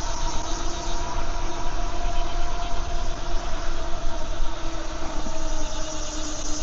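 Riding noise from an electric bike on the move: wind rushing over the microphone with a steady hum that sinks slightly in pitch near the end.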